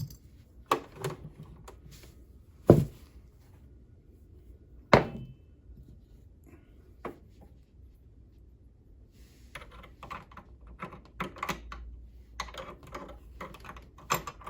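Sharp knocks and clicks of hard parts being handled on an old Kenmore sewing machine during cleaning: four separate knocks about two seconds apart, then a busier run of small clicks and rattles near the end.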